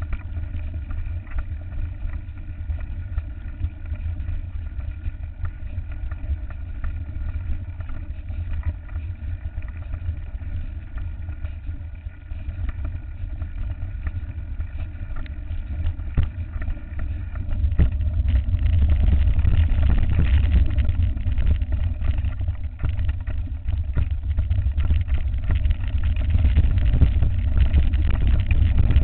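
Mountain bike rolling down a dirt track, heard from a camera mounted on the bike: wind buffeting the microphone and tyre rumble, with rattling and knocks. The noise grows louder and rougher a little past halfway as the track gets bumpier.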